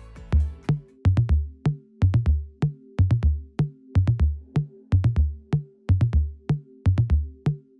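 Background music: a fading passage gives way, just after the start, to an electronic drum-machine beat with a heavy kick drum and sharp clicks over held low notes.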